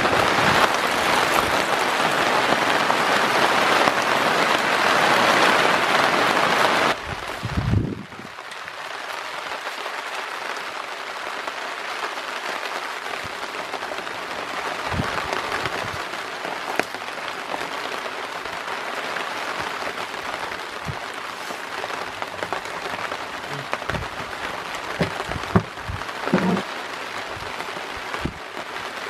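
Rain pattering on a ute's tray canopy, heard from inside: a loud, dense hiss for the first seven seconds. After that, steadier, quieter rain under a tarp, with a few scattered knocks.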